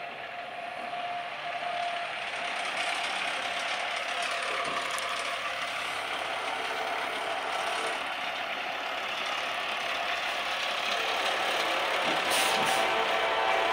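Approaching diesel freight train led by an EMD SD70ACe and a GE AC44CW: a steady rumble of the locomotives' engines and wheels on the rails, growing slowly louder as the train draws near.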